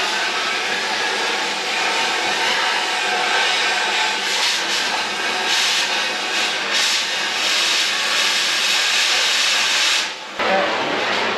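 Oxy-fuel cutting torch hissing steadily as it cuts through steel bumper tubing. The hiss cuts off sharply about ten seconds in, followed by a brief short burst.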